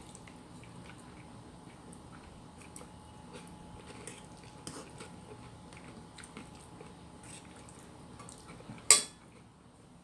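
Person eating: quiet chewing with small scattered clicks and taps, and one sharp clack about nine seconds in.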